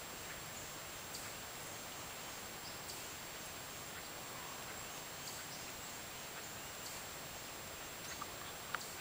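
Faint, scattered high peeps from a brood of wild turkey poults over a steady hiss and a thin high whine, with one sharp click near the end.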